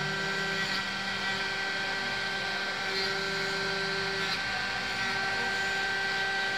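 CNC vertical milling machine cutting a metal block with a small end mill: a steady spindle whine with several high tones over constant cutting noise, with a lower hum that comes and goes.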